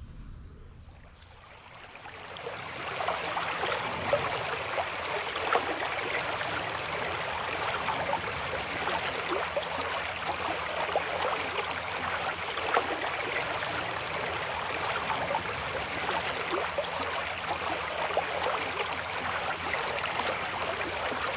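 Shallow stream babbling over rocks in a riffle: a steady splashing rush of water that swells in over the first two seconds.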